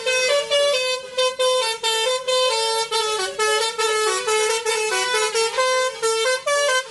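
Multi-note musical truck horn playing a quick tune of short notes that step up and down in pitch.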